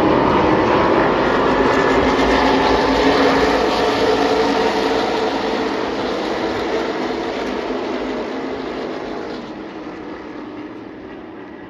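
A full field of V8 stock cars going by at speed at the race start: a loud, dense engine drone that fades steadily through the second half as the pack moves away.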